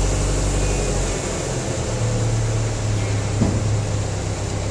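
An engine running steadily, with a low hum whose note shifts about a second in and then settles on a steady lower tone.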